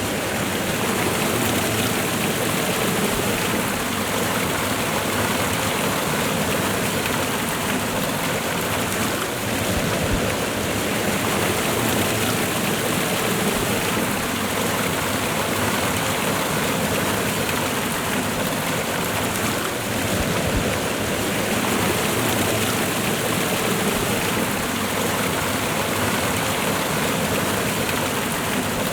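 Waterfall and river water rushing steadily, a continuous dense splashing with no change.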